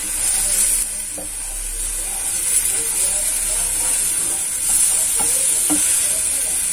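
Tomato slices sizzling with a steady hiss in a dry non-stick frying pan over a gas flame, charring without oil, with a plastic spatula now and then scraping and turning them.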